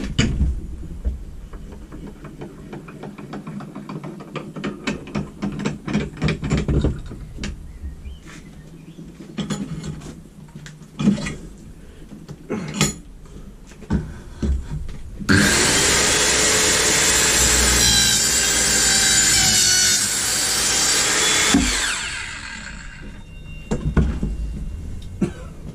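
Knocks and clicks of handling and positioning for the first fifteen seconds or so. Then the Evolution 165mm TCT multi-material circular saw starts abruptly and cuts through timber with screws in it for about six seconds. Its motor then spins down quickly with a falling tone, slowed by its electric blade brake.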